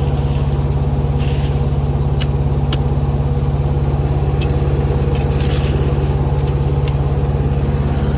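Mini excavator's small engine idling steadily at a constant speed, with a few faint ticks over the top.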